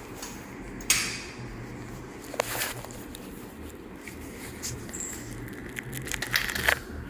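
Surgical instruments being handled while a skin incision is sutured: a few sharp clicks and light rustles, the loudest about a second in and a quick cluster near the end, over a low steady hum.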